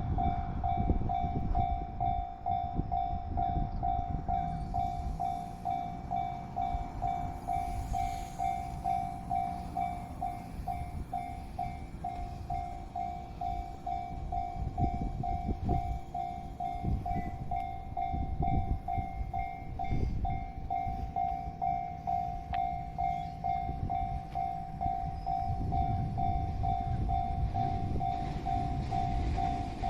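Japanese railway level-crossing warning bell ringing in a rapid, even rhythm, about two to three strokes a second, over the low rumble of a train running through the crossing.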